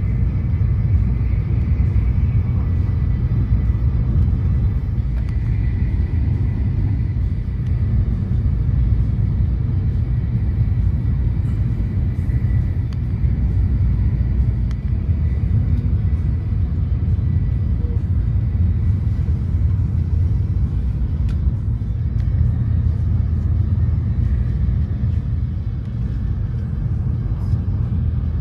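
Steady low rumble of a Shinkansen bullet train running at speed, heard from inside the passenger cabin.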